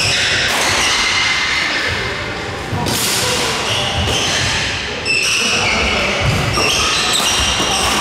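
Badminton doubles rally: sharp racket strikes on the shuttlecock, shoes squeaking in short bursts on the wooden court floor, and the thuds of footfalls, echoing in a large hall.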